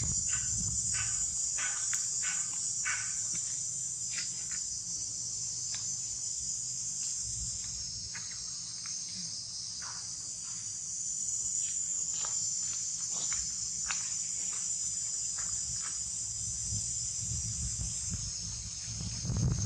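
Steady, high-pitched chorus of insects, with short faint clicks and chirps scattered through it.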